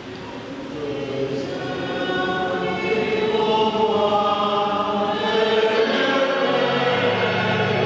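A choir singing a slow hymn in long held notes, swelling in volume over the first few seconds; a low steady note joins near the end.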